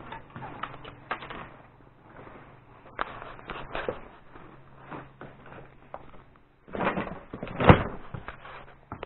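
Scattered knocks, scrapes and rustling of someone moving through attic clutter, with one loud thud near the end.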